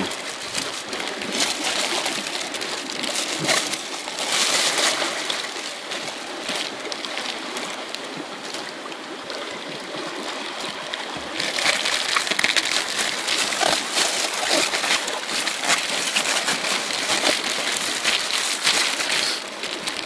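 Seawater sloshing and a plastic bag crinkling as a sea cucumber is turned over inside the bag, with many small crackling ticks. It is louder about four seconds in and again from about twelve seconds.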